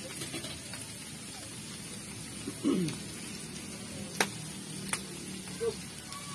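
Chicken frying in a pan on a gas stove, a steady low sizzle. A short falling cry comes near the middle, followed by two sharp clicks a second or two later.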